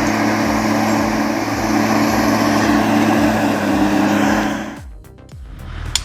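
A loaded logging truck's diesel engine labouring up a grade under heavy load, with background music over it. Both drop away sharply about five seconds in, and there is a sharp click near the end.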